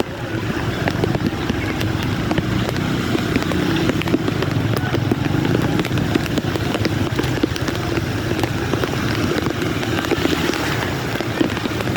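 A vehicle engine running steadily through heavy rain, with many small ticks of raindrops over it.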